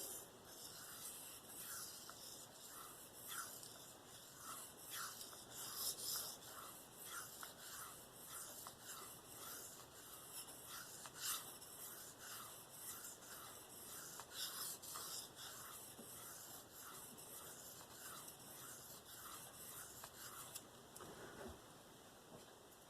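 Steel knife blade (a K390 Spyderco Endura 4) stroked freehand across a Venev diamond sharpening stone: a faint scraping, just under two strokes a second, trailing off near the end.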